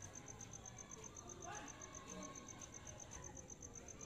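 A cricket chirping steadily in a high, evenly pulsed tone of about five pulses a second.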